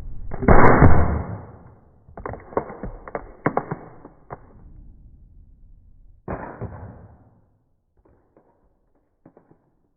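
A flip phone dropped down a chute: a loud rushing whoosh about half a second in, then a run of sharp clattering knocks as it strikes and tumbles, and another short rattle about six seconds in.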